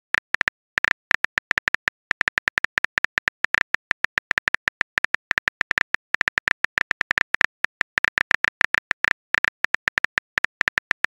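Phone keyboard click sound effect, one tick per key as a text message is typed out: several clicks a second, with a couple of short pauses.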